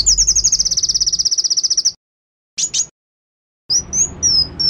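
Bar-winged prinia (ciblek) song played as a lure recording: a rapid, high trill for about two seconds, then abrupt gaps of dead silence, two short notes, and a wavering whistled phrase near the end.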